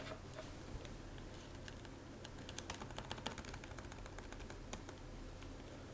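Faint, scattered key clicks from the Dell XPS 15 2-in-1's short-travel magnetic keyboard being pressed, with a quick run of several about halfway through.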